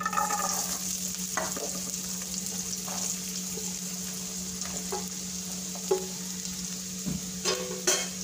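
Chopped onions sizzling in hot oil with cumin seeds in a non-stick wok. The sizzle starts suddenly as they go in and runs on steadily, with a few short taps and clicks.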